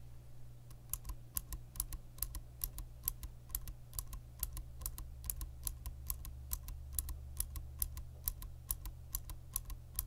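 Cherry MX Blue clicky mechanical keyboard switch pressed over and over, giving sharp, evenly spaced clicks about three to four times a second that begin about a second in.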